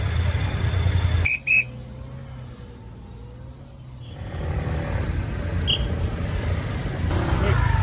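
Low rumble of idling motorcycles and street traffic, with two short high whistle blasts about a second in. The rumble drops for a few seconds, then returns.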